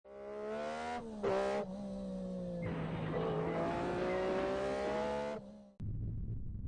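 A car engine revving, its pitch rising slowly, with a brief loud noisy burst about a second in. It cuts off abruptly near the end and gives way to a low hum.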